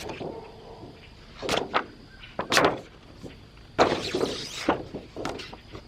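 Parts of a disassembled LCD monitor being handled: a few sharp knocks and clacks, and about four seconds in a second of scraping as pieces slide against each other.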